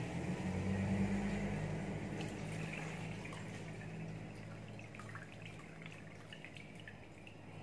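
Canned-fruit juice pouring from a glass bowl into a plastic tub. The stream is strongest about a second in and thins toward a trickle near the end.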